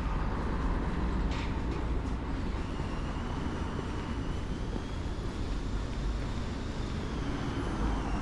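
Road traffic: vehicle engines and tyres making a steady low rumble, with a short hiss about a second in and a thin high whine coming in from about three seconds.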